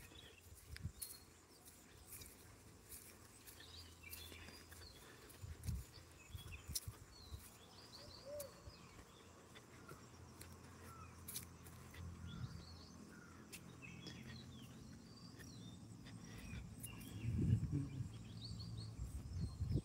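Faint open-air ambience of small birds chirping and calling in short scattered notes throughout, with a low muffled rumble swelling a little past the middle and again near the end.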